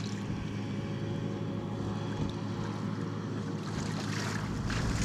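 Water splashing and sloshing as a person wades through a shallow flooded field in waders, loudest toward the end, over a steady low hum.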